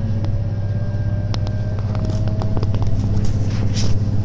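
Inside a diesel railbus under way: a steady low engine drone with a faint whine that slowly rises in pitch, and a run of sharp clicks and knocks from the wheels over the track between about one and three seconds in.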